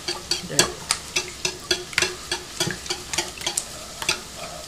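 Wire whisk beating eggs in a plastic mixing bowl, its wires clicking against the bowl about three times a second.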